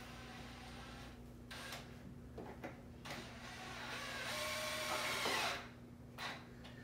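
Cordless drill driving a screw into a wooden chair leg: after a few light clicks, the motor whirs and grows louder for about two and a half seconds, then stops suddenly.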